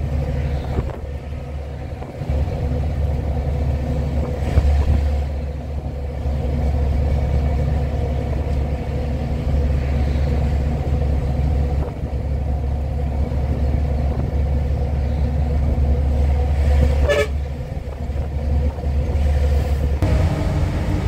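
Diesel engine of a FAW JH6 tractor-trailer droning steadily with road noise, heard from inside the cab while cruising under a heavy load. A brief sharp sound cuts in about seventeen seconds in.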